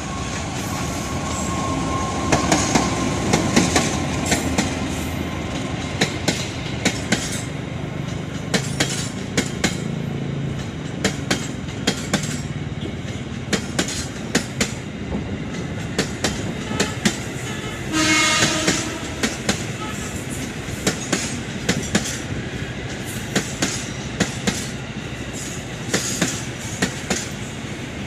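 CC 206 diesel-electric locomotive passing with its engine running, strongest in the first few seconds, then passenger coaches rolling by, their wheels clicking rhythmically over the rail joints. A brief horn sounds about two-thirds of the way through.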